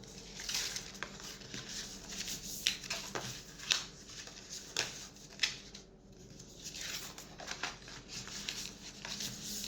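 Card box panels being folded by hand along their creases: irregular crackling and rustling of the stiff card, with a few sharper clicks as the folds give.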